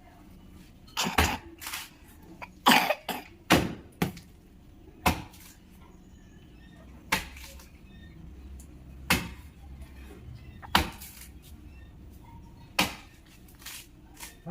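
An axe chopping into a coconut palm trunk: about a dozen sharp strikes, several in quick succession in the first few seconds, then single blows about every two seconds.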